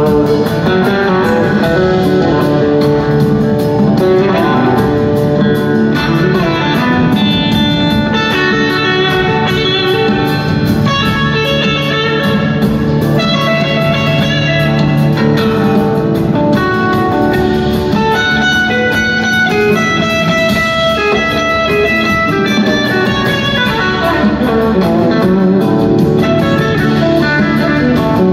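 Live rock band playing an instrumental jam, an electric guitar carrying melodic lead lines over the band, heard loud from the audience in a large hall.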